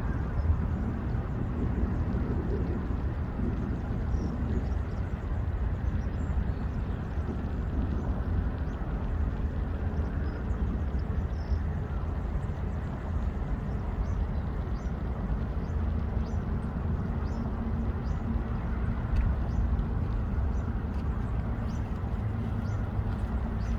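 Outdoor field ambience: a steady low rumble, with faint short high chirps scattered through it.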